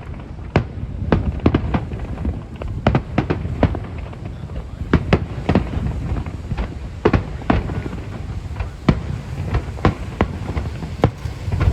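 Fireworks bursting in quick succession: a long irregular string of sharp bangs, two or three a second, over a continuous low rumble.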